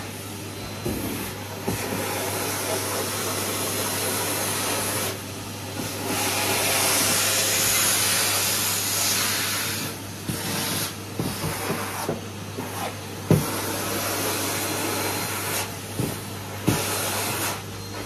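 Numatic Henry vacuum cleaner running with a steady low hum and a hiss of suction that swells louder and drops back several times. There are a few sharp knocks, the loudest about 13 seconds in.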